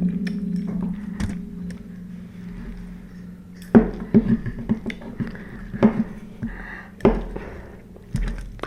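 Eating utensils clinking and knocking against bowls and pots of ramen, with a cluster of sharp knocks about four seconds in and more near the end. A low ringing tone, from a pot or bowl struck just before, fades out over the first three seconds.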